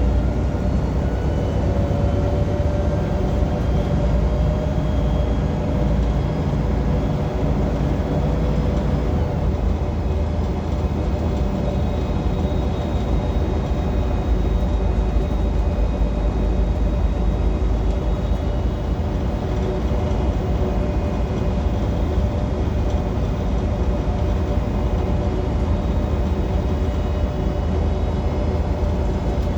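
Inside a moving Transperth city bus: a loud, steady low rumble from the drivetrain and road, with no ventilation fan running. A thin whine shifts in pitch for the first nine seconds or so, then holds steady.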